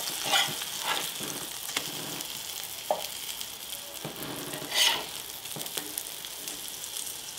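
Sourdough pancakes sizzling steadily in butter in a cast iron skillet while they are flipped. Several short scrapes of a spatula against the pan come through; the loudest is about five seconds in.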